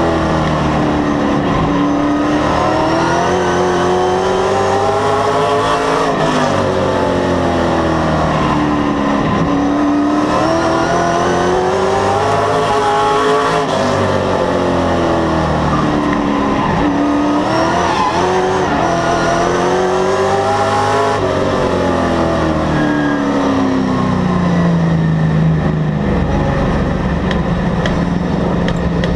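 Oval-track race car engine heard from inside the car, its pitch climbing under throttle and dropping back in a repeating cycle about every seven to eight seconds as it accelerates down the straights and lifts for the turns. In the last few seconds it settles to a steadier, lower drone.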